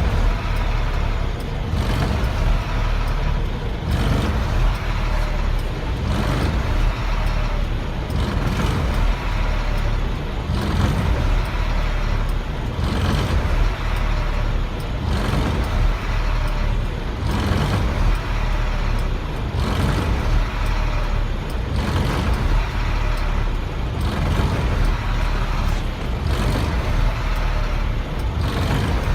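Diesel engine of a 1999 Freightliner truck running and surging, its sound rising and falling about every two seconds. The surging is a symptom the owner puts down to a bad fuel pressure sensor.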